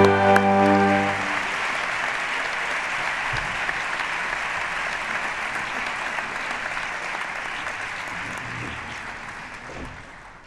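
A short stretch of music ends about a second in, and the audience applauds steadily; the clapping fades out near the end.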